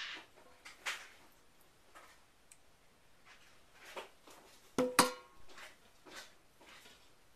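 Light scrapes and taps of a spatula against a stainless steel pot as soap batter is poured out, then a sharp metallic clank about five seconds in that rings briefly.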